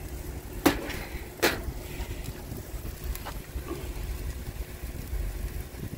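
Strong wind buffeting the microphone as a steady low rumble. Two sharp knocks come under a second in and again about a second later, with a fainter one a few seconds in.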